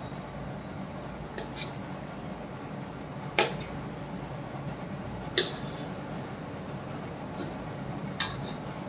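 Metal ladle clinking and scraping in a metal karahi while mutton curry is served into a bowl: three sharp clinks about two to three seconds apart, with a few fainter taps between, over a steady low hum.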